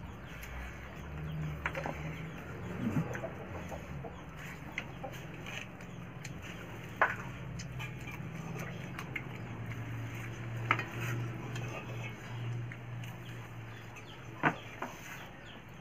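A meal eaten by hand from steel plates and bowls, with a few sharp clinks of metal dishes. Chickens cluck in the background.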